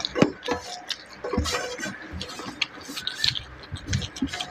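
Close-miked eating: irregular wet clicks and smacks of chewing, with fingers scraping the last curry and rice from a steel plate.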